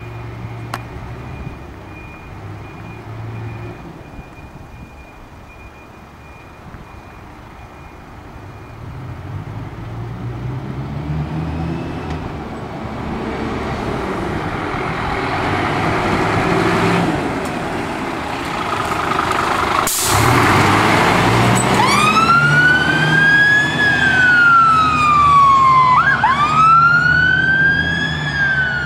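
Scania fire engine (rescue pump) running and pulling out under power on a turnout. After about twenty seconds, a sharp click, then its electronic wail siren starts, rising and falling slowly in pitch.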